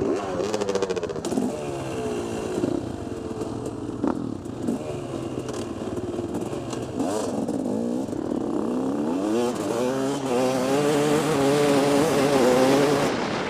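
Several motocross bikes' engines idling and being blipped, their revs rising and falling over one another; about ten seconds in one bike revs up louder and pulls away, its engine note climbing.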